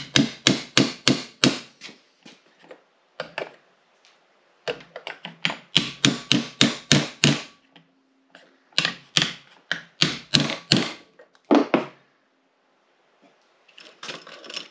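Hammer tapping a seal driver to drive a rubber lip seal into the hub of a 1937 Ford rear brake drum: three runs of quick, sharp metal taps, about four a second, with pauses between and a few single taps.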